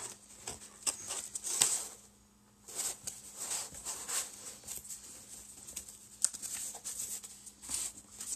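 Cardboard boxes and packing foam being handled: irregular rustling and scraping as small cardboard boxes are lifted and slid against each other inside a larger shipping carton, with one sharp tap about six seconds in.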